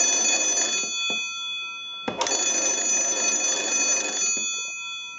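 Original twin bells of a Kellogg wooden wall crank telephone ringing in bursts as its hand crank is turned. One burst ends about a second in, a second runs from about two seconds in to past four seconds, and a third starts at the very end, with the bells ringing on faintly between bursts.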